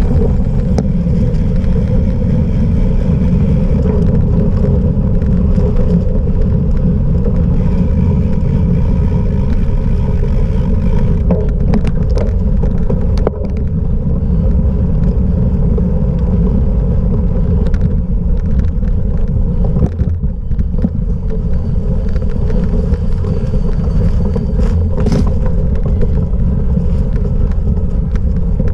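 Loud, steady wind rush and rumble on the microphone of a cyclocross bike ridden over rough off-road ground. Occasional short clicks and knocks from the bike come through it.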